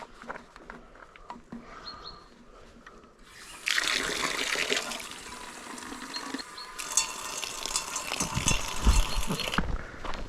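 Water running in a steady hiss for about six seconds, starting a few seconds in after a quiet stretch of small clicks, with a brief dip partway through and a few low knocks near the end.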